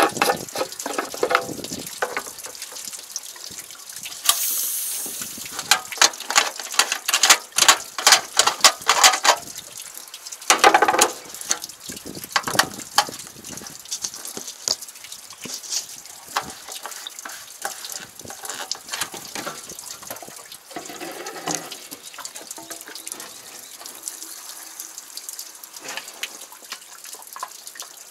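Liquid running through a ribbed hose into a pesticide sprayer's tank, with frequent clicks and knocks from the hose and fittings being handled.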